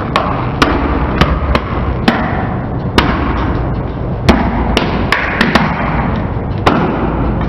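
A car tyre rolling slowly over lint rollers, crushing them: a dozen or so sharp, irregular cracks and snaps as the plastic handle and the cardboard roll cores break, over the low rumble of the car.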